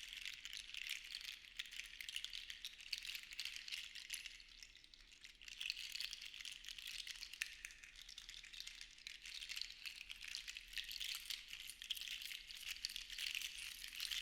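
Seashells rattling and clicking against each other in a dense, continuous patter that swells and eases in slow waves, with a brief lull about five seconds in.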